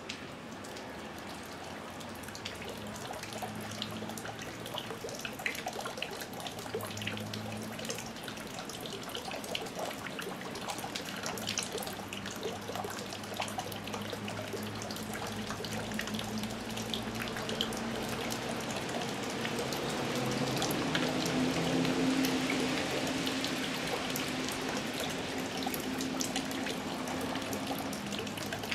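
Steady rain falling, a dense patter of many small drops. A low hum sits underneath and grows louder around twenty seconds in.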